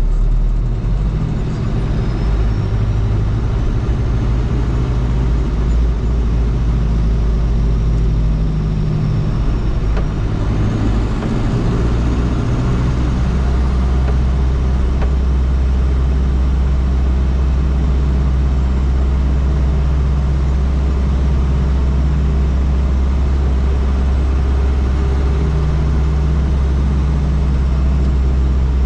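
1987 Toyota Land Cruiser BJ73's 13B-T four-cylinder turbo-diesel running under way, its engine speed changing during the first twelve seconds or so and then holding steady.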